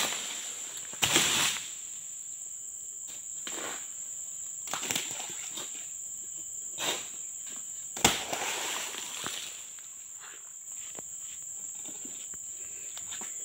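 Insects droning steadily at a high pitch, with footsteps and rustling through undergrowth and a few sharp knocks, the loudest about a second in and about eight seconds in.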